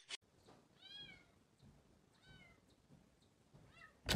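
A cat meowing faintly three times, short calls that rise and fall in pitch, about a second and a half apart.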